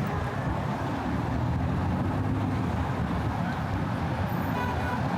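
Steady city street traffic noise: a continuous rumble of car and bus engines and tyres passing, with a faint brief pitched whine near the end.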